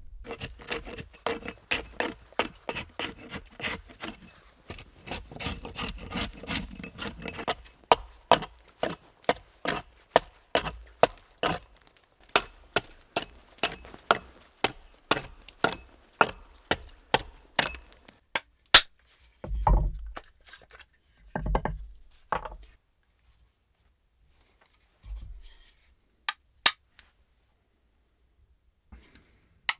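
Axe chopping along a log, hewing it flat into a board: steady, even strikes about two to three a second, then a few heavier thumps before it stops.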